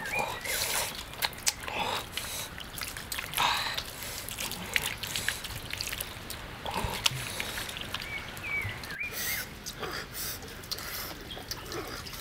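Water poured from a gourd container trickling and splashing onto raw pork on a wooden chopping block, over the crackle of a wood fire's sharp clicks. A short chirping call comes about two-thirds of the way through.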